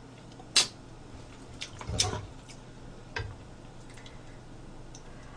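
Three short clicks and knocks, a metal spoon against metal dishes, about half a second, two seconds and three seconds in, over a faint steady hum.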